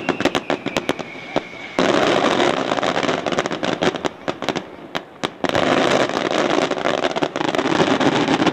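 Aerial firework shells going off: a string of sharp bangs, with a whistle gliding slowly down that stops about two seconds in, followed by dense crackling from crackling stars that dips briefly around five seconds in and comes back.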